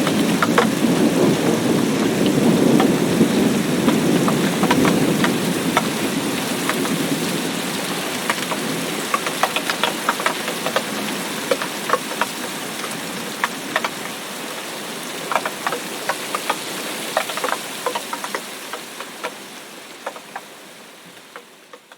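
Rain falling steadily, with many close individual drops hitting a surface. A low thunder rumble over the first few seconds dies away, and the whole rain sound then fades out gradually, ending near the end.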